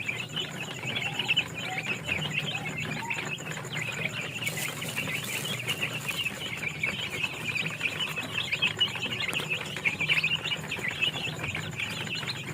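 Many young chicks peeping without a break, a constant crowd of short high peeps over a low steady hum.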